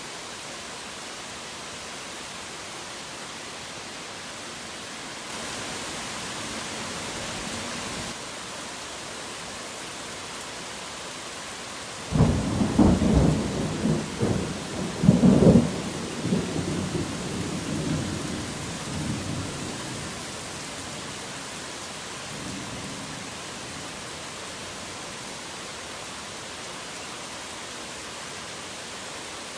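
Steady rain with a thunderclap: a sudden loud crack about twelve seconds in, followed by several seconds of rumbling that dies away. The rain swells briefly a few seconds before the thunder.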